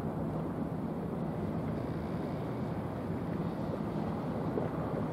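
Small coastal cargo ship's diesel engine running with a steady low hum, heard across the water over a constant rushing of wind and water.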